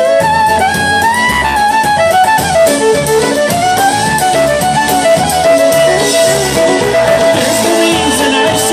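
Live polka band playing an instrumental break, a fiddle carrying a sliding, gliding melody over the band's backing and a steady beat.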